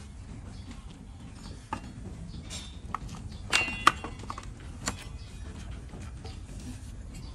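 Irregular sharp knocks and clinks of a flat hoof-paring blade against a donkey's hoof and the wooden trimming block. The loudest knocks come about three and a half to four seconds in, with a short metallic ring.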